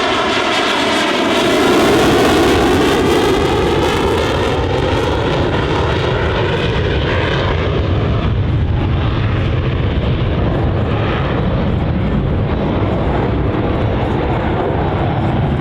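EA-18G Growler's twin General Electric F414 jet engines, loud, as the jet passes. The engine whine dips and then rises in pitch in the first few seconds, which fits power being added for a wave-off from a simulated carrier approach. A heavy steady rumble follows as the high whine fades.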